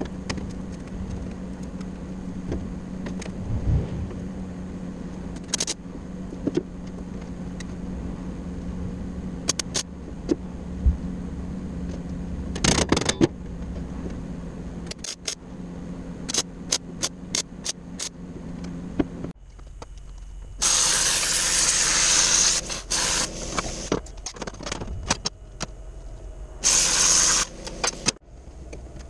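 Metal fabrication work: a steady electrical hum with scattered clicks and knocks, which stops about two-thirds of the way through. Then come two loud hissing bursts of a few seconds each, around 21 and 27 seconds in.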